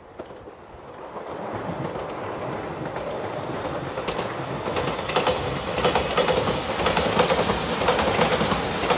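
Shiokaze limited express electric train approaching and running past at speed. The running noise swells from about a second in, then becomes a dense clatter of wheels over the rail joints, with a thin high wheel squeal over it from about halfway.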